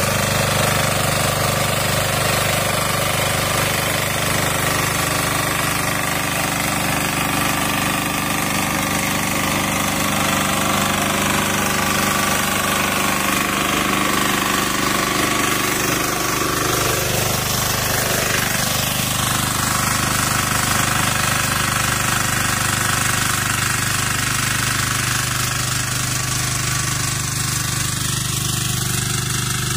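Kisankraft 406D power tiller running steadily at working speed, its rotary tines churning soil. The engine note dips briefly about two-thirds of the way through, then recovers.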